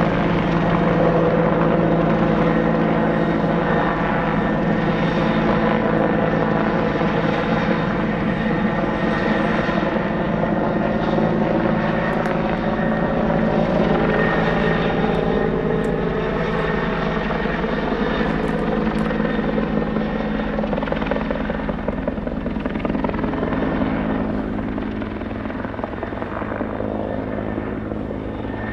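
Bell 412 twin-turbine helicopter flying past, its rotor and engines running steadily. The pitch slowly drops in the middle, and the sound grows fainter near the end as it moves away.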